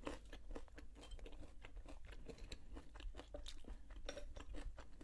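A person chewing crunchy food with the mouth closed: a quiet, irregular run of small crunches and wet mouth clicks.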